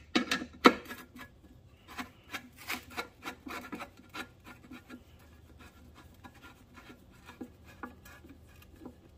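Long screwdriver turning a screw into a band saw's table to tie its two halves together: a run of irregular metal clicks and scrapes with the turns, loudest in the first second and thinning to sparse ticks later.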